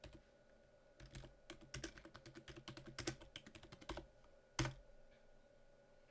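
Typing on a computer keyboard: a quick run of keystrokes for about three seconds, then a single louder keystroke shortly after.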